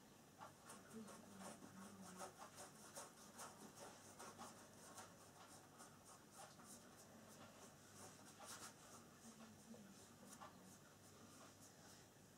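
Faint, quick scratching of a paintbrush stroking paint onto canvas, several short strokes a second.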